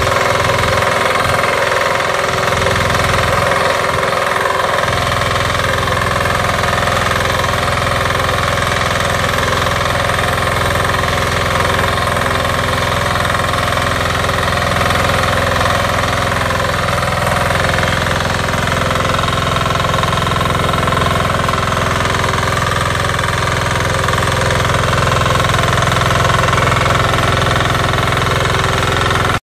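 Single-cylinder Weima diesel engine of a BSR 1100 BE walk-behind tiller running steadily under load as its rotary tines work through the soil.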